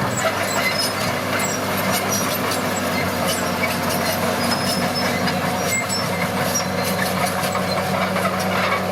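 A heavy earthmoving machine's diesel engine runs steadily under load, with scattered metallic clicks, clanks and squeaks from its moving parts.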